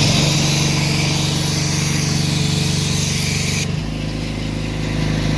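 Pressure washer running with the loud hiss of its spray, which stops abruptly about two-thirds of the way through. The motor's steady hum drops in pitch at the same moment, as when the trigger is released.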